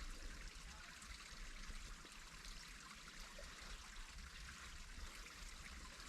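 Faint, steady rushing outdoor background noise with a low rumble underneath.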